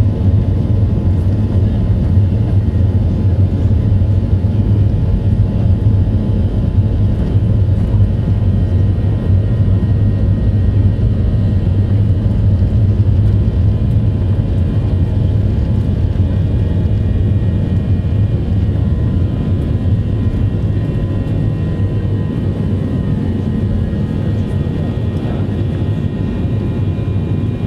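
Airliner engines and airflow heard from inside the cabin as a steady, loud, low drone with a faint steady whine above it, easing slightly near the end.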